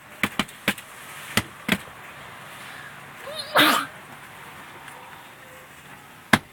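A child's pretend sneeze: one short burst with a rising voiced onset, about halfway through. A few sharp clicks or taps come in the first two seconds and once more near the end.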